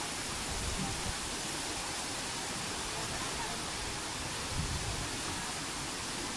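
Steady rush of river water, an even hiss with no rhythm or pitch.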